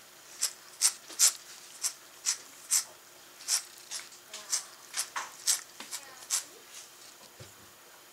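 Calico cat licking the gray padded back of a metal folding chair: about fifteen short, wet, raspy tongue strokes, roughly two a second. They stop about six and a half seconds in.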